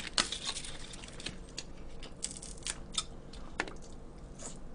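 Close-miked eating and food-handling sounds: irregular sharp clicks and crackles as chopsticks pick food and lettuce out of plastic containers and a lettuce wrap is brought to the mouth.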